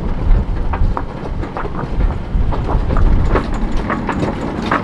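Low rumble of wind buffeting the microphone aboard a sailing yacht motoring into the wind, with irregular short sharp slaps and clicks throughout.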